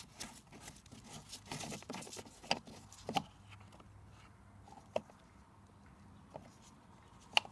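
Plastic screw cap of a car's brake fluid reservoir being unscrewed and handled by a gloved hand: a run of small rubbing clicks as it turns, then a few separate sharp plastic clicks, the loudest near the end.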